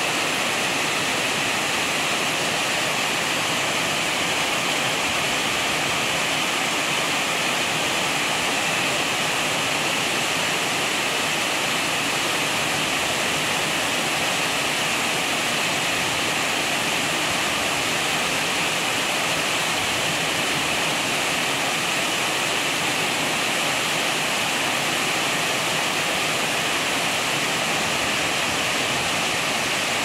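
Waterfall running in a steady, unbroken rush of falling water.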